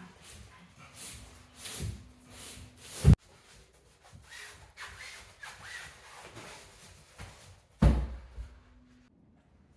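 Several rubbing strokes of something sliding over wood, then a sharp wooden knock about three seconds in. Softer scraping follows, then a heavy thump near the end.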